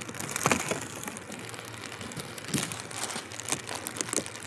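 Light rain falling and pattering: irregular crackling ticks over a soft hiss.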